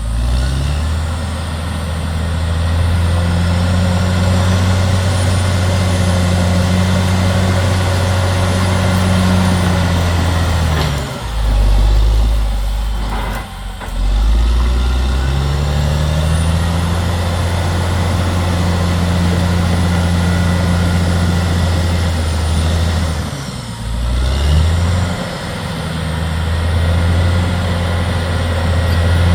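CAT D6R XL bulldozer's diesel engine running hard and steady. Twice, about 11 and 24 seconds in, the engine note sags and then climbs back up as the load changes.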